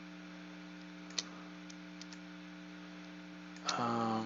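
A steady electrical hum with a few faint computer-mouse clicks, the clearest about a second in. Near the end comes a short wordless voice sound.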